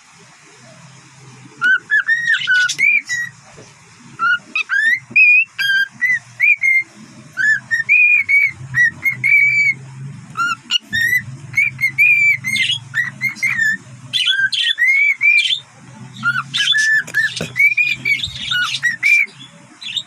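Cockatiel whistling and chirping: a long run of short whistled notes that slide up and down, starting about two seconds in and going on to the end.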